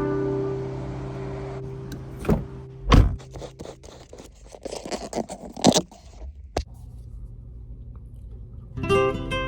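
Car noises: a low thump about three seconds in, a run of clicks and rattles like keys and door handling, then a car engine idling with a steady low hum from about six and a half seconds in. A guitar chord dies away at the start and guitar music comes back near the end.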